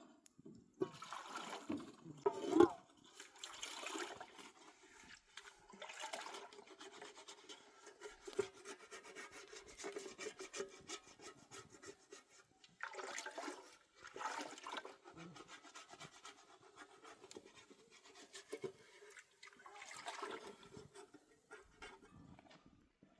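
Irregular swishing of water and rubbing, as in washing something by hand, coming in uneven bursts with louder stretches around the start, the middle and near the end.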